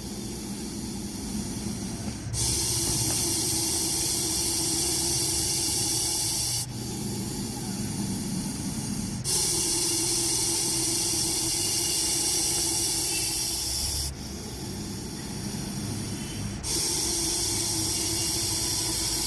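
Russell's viper hissing loudly in a slow rhythm: three long, loud hisses of four to five seconds each, each followed by a softer, shorter hiss.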